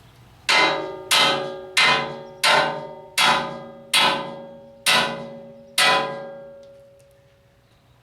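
A hammer striking steel eight times at a steady pace, each blow ringing out with a metallic tone that fades before the next; the last blow rings longest.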